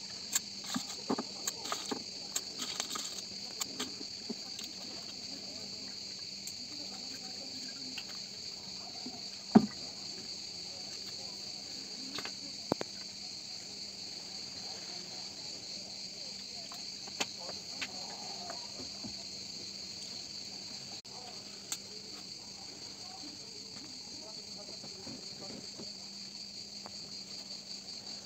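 Cicadas chirring in a steady high drone, with scattered clinks and knocks from ice, glass and bottles being handled as a cocktail is mixed; the sharpest knock comes about ten seconds in.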